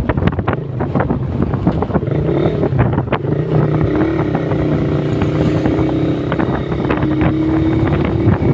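Motorcycle engine running at a steady cruise while riding, with wind buffeting the microphone in short crackles.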